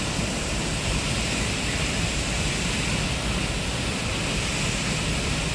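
A waterfall running: a steady, unbroken rush of falling water.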